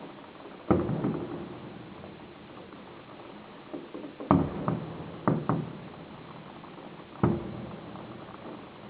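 Firework shells bursting: a loud bang near the start, a quick cluster of bangs a little after the middle, and another bang near the end, each trailing off in a rumbling echo.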